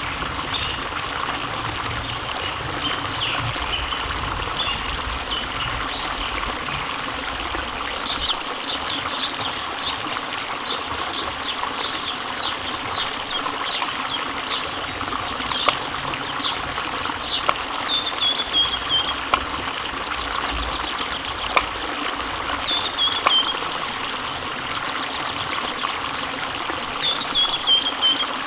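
Steady rush of running water, with short high chirps and falling, bird-like trills repeating over it from about a third of the way in.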